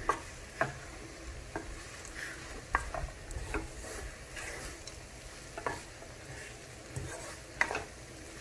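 Wooden slotted spatula stirring and scraping a dry, crumbly poha mixture in a speckled stone-coated nonstick pan, with irregular sharp knocks of the spatula on the pan over a faint sizzle.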